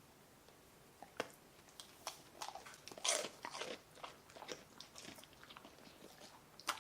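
Samoyed dog crunching and chewing hard treats: irregular sharp crunches begin about a second in, grow densest and loudest around the middle, and end with one more sharp crunch.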